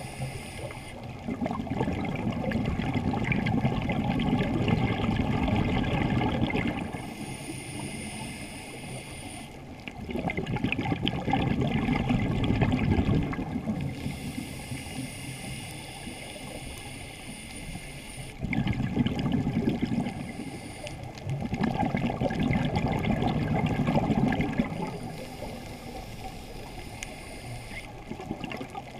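Scuba diver breathing through a regulator underwater: a thin hiss through the demand valve on each inhale, then a long bubbling exhale, repeated about four times in a slow, even rhythm.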